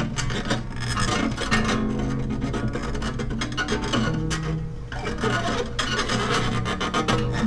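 Acoustic guitar music: fast, scratchy strumming over held low notes, with a rasping texture.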